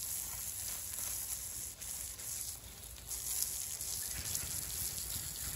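Garden hose spray nozzle hissing steadily as water jets onto freshly sawn lumber boards, washing off caked-on sawdust.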